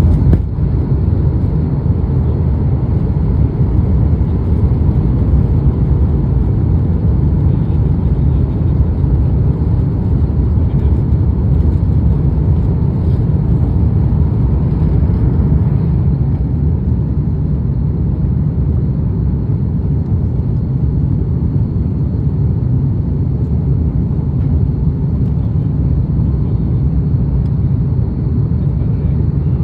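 Steady low rumble of cabin noise aboard an Airbus A330 in flight, engine and airflow noise heard from a window seat.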